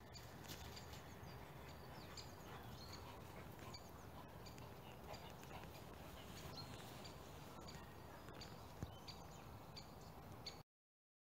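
Faint outdoor garden ambience: a steady low rumble with scattered short, high bird chirps. It cuts off suddenly near the end.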